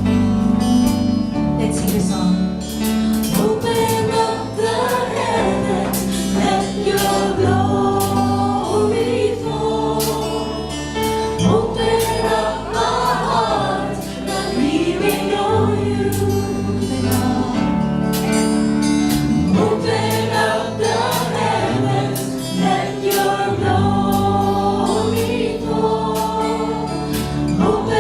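Live church worship band and singers performing a praise song: voices in chorus over sustained bass notes, with steady drum and cymbal hits throughout.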